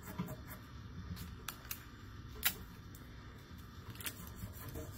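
Paper and tape handled at a table as accordion-folded paper legs are taped onto a felt shamrock: faint scattered light clicks and crinkles, with one sharper click about two and a half seconds in.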